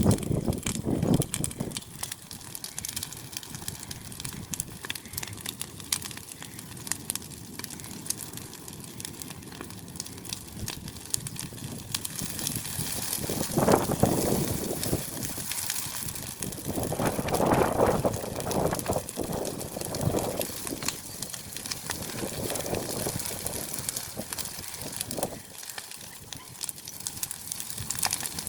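Dry hay burning in the open: irregular crackling throughout, with two louder swells of noise about halfway through.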